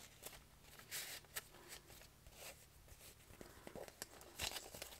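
Faint rustling and scraping of paper with a few soft clicks, as fingers work a yellow band off a wrapped sticker kit.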